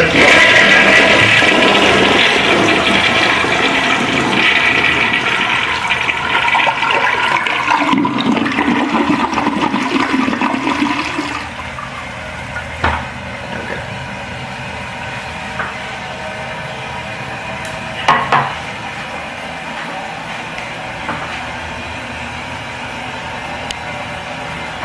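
1987 Crane Plumbing Hymont toilet flushing: a loud rush of water for about eleven seconds that turns lower-pitched near its end, then a quieter steady run of water, likely the tank refilling, with a few faint knocks. The flush is unusually long, which the owner thinks may come from a partial clog.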